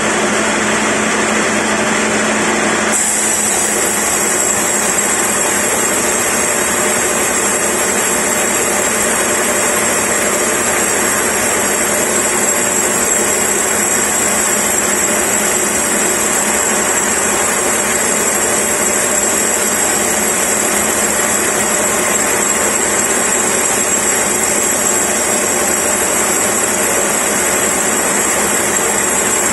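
Sawmill band saw headrig running and cutting lengthwise through a log as the carriage feeds it: a loud, steady mechanical noise with a thin high whine.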